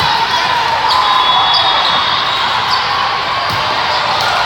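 Volleyball played in a busy indoor sports hall: a steady hubbub of voices from several courts, with a few sharp ball hits during the rally.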